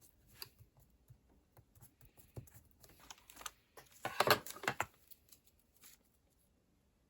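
Paper and stickers being handled at a desk: small taps and light rustles, with a louder scratchy rustle lasting about a second about four seconds in, then quiet.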